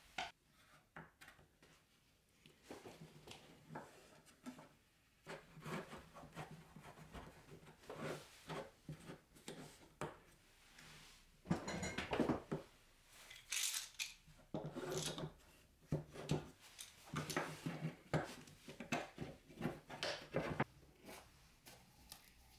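Oak baluster rails and a quick-grip bar clamp being handled on a wooden workbench: irregular wooden knocks, clicks and scraping as the glued pieces are pressed together and the clamp is fitted and tightened. The handling is busiest from about halfway through until shortly before the end.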